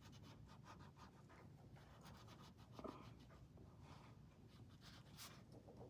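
Faint scratching of a crayon colouring on a colouring-book page in quick repeated strokes.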